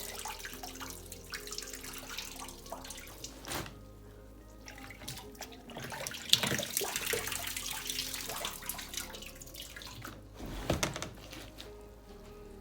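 Water sloshing, splashing and dripping as wet laundry is lifted by hand out of a twin-tub washing machine's wash tub and dropped into the spin tub, with a few louder splashes along the way.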